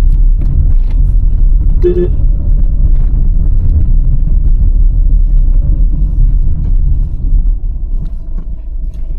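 Low, steady rumble of a car driving along a lane, with a short pitched sound about two seconds in.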